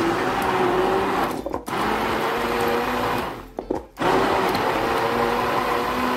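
Sonashi hand blender running in a tall beaker, its motor whirring as it blends coriander, mint and tamarind into chutney. It is pulsed: a short dip about a second and a half in, a pause of about half a second near the middle, then it starts again, its pitch climbing each time it spins up.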